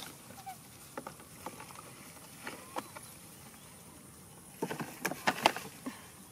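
Scattered light knocks and rattles of a plastic toy dump truck as a baby monkey clambers over it, with a quick run of louder knocks about five seconds in.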